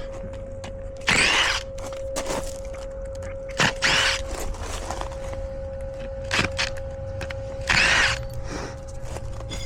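Form stakes being worked loose and pulled out beside fresh concrete: four short, loud scraping clanks, two of them close together in the middle, over a steady hum.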